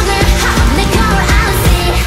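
K-pop dance track playing loud: a heavy drum beat under sung vocals.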